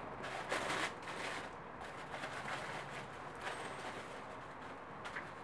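Soft rustling of shoe-box tissue paper and a cloth dust bag being handled as sandals are taken out, in several short bursts, the loudest about a second in.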